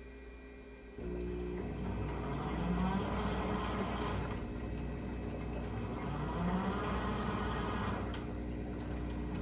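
Teco washing machine starting a cycle. About a second in, a hum comes on, followed by a steady wash of water and motor noise with a low whine that swells every three to four seconds.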